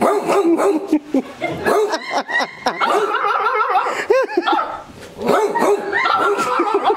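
A man and a woman imitating dogs with their voices, trading barks, yelps and whines back and forth, with a quick run of short yelps about four seconds in.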